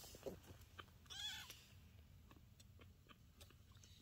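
A very young kitten mewing once, a short high-pitched mew that bends in pitch about a second in, followed by faint small ticks.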